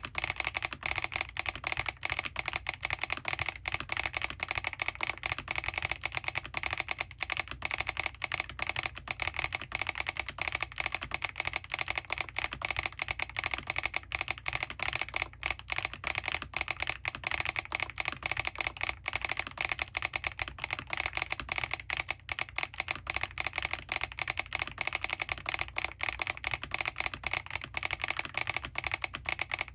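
Continuous fast typing on a Smurve80 mechanical keyboard with lubed Keygeek Oat switches, doubleshot PBT keycaps, an aluminium plate and full foam, with the keyboard's solenoid switched on so that it fires with the keystrokes.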